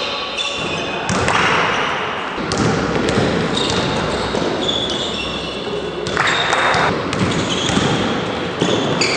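Basketball game on an indoor court: the ball bouncing, and sneakers squeaking on the floor in short, high-pitched squeals, all echoing in the hall.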